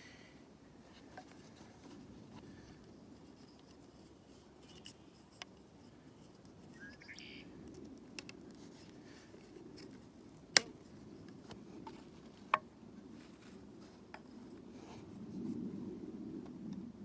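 Bow drill in use: a wooden spindle grinding steadily in the notch of a wooden hearth board, working harder and louder near the end, with a few sharp clicks and a short rising squeak. The wood is freshly harvested and still damp, which keeps it from making a coal.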